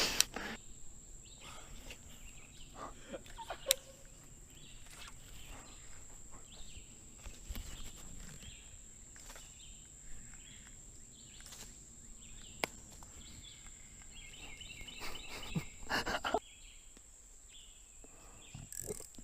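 Quiet outdoor ambience with a steady thin high tone, scattered small clicks and knocks, and a short warbling bird call about fifteen seconds in.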